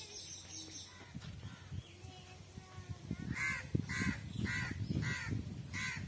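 A crow cawing: five harsh caws about half a second apart, starting about three seconds in.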